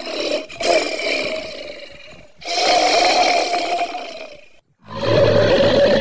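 Polar bear roaring, three long roars of about two seconds each, the last cut off abruptly.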